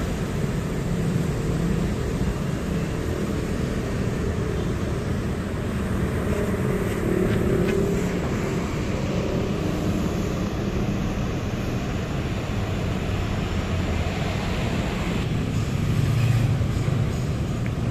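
Steady road traffic of cars and motorcycles, a continuous low rumble of engines and tyres.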